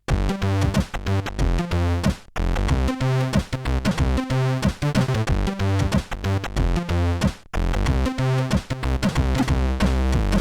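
Electronic Amiga intro music with a drum-machine beat and synth lines, starting abruptly right after the previous tune has faded out, with two brief breaks in the beat about two and seven and a half seconds in.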